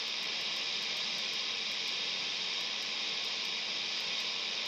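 Steady static hiss from a Quansheng UV-K5 handheld radio's speaker with the squelch open and no station coming in.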